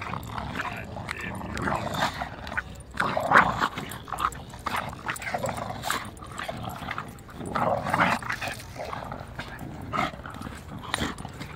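An English bulldog and a Staffordshire bull terrier growling as they tug at a toy held between their jaws, in uneven bursts, loudest about three seconds in and again around eight seconds in.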